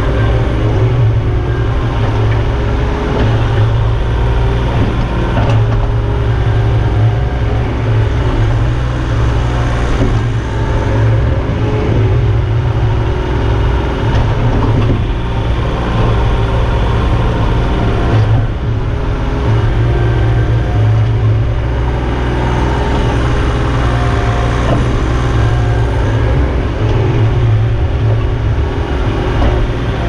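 Diesel engine of a Takeuchi TB035 compact excavator running steadily at working speed, heard from the operator's seat, as the boom and bucket dig dirt.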